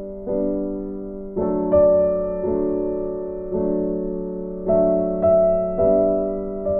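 Background music: soft piano-like keyboard chords, each struck and left to ring and fade before the next.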